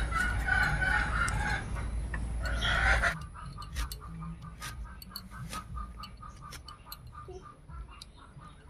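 Chicken clucking for the first three seconds. After a sudden drop in level, scattered light clicks of a boti blade slicing through star fruit.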